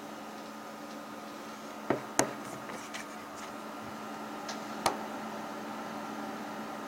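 A steady electrical or mechanical hum, with sharp clicks or knocks: two close together about two seconds in, a few faint ticks after them, and one more about five seconds in.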